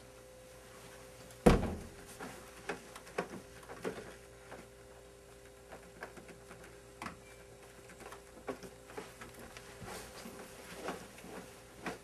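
One loud knock about a second and a half in, then scattered light clicks and knocks, over a faint steady hum.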